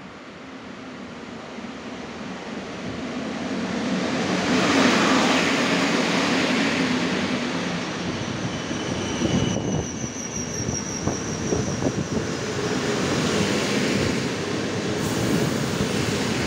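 EP07 electric locomotive hauling a rake of passenger coaches along a station platform, swelling to a loud passing rumble about five seconds in as the locomotive goes by, then the coaches rolling past with the uneven knocking of wheels over rail joints. A thin high squeal sounds for a few seconds in the middle as the train slows.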